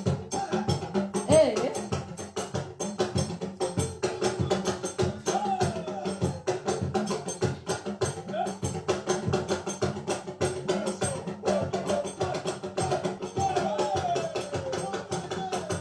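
Music with fast, dense percussion of sharp clicking strokes over sustained low notes. Short gliding pitched phrases come and go above it.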